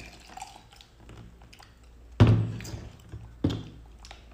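A glass mug set down on a tabletop with a solid thunk about two seconds in, then a second, lighter knock about a second later.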